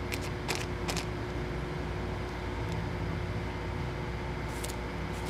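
Steady background hum and hiss, with a few short crinkles of a clear plastic zip-lock bag being handled near the start and again near the end.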